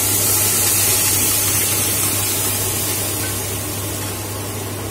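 Cooked dal poured from a pressure-cooker pot into a hot kadai of fried masala, sizzling and hissing as it hits the pan. The hiss is loudest in the first couple of seconds and then eases off.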